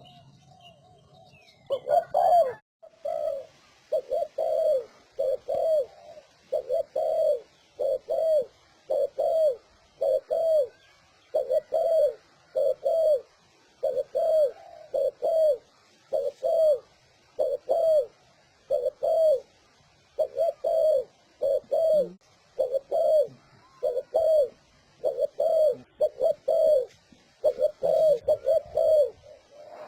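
Spotted dove cooing in a fast, rapid-fire style, a lure call for wild doves: a long, even run of short, low coos in quick pairs and triplets, beginning about two seconds in.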